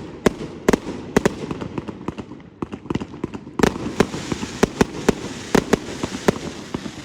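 Many fireworks going off at once: sharp bangs a few per second at irregular intervals over a continuous background crackle. About three and a half seconds in, a louder bang is followed by a crackling hiss.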